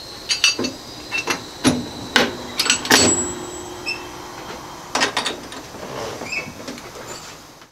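Metal clanks and clicks of the brass operating handles being fitted and seated on an electric locomotive's controller. A dozen or so sharp knocks come irregularly, and the loudest, about three seconds in, leaves a brief metallic ring.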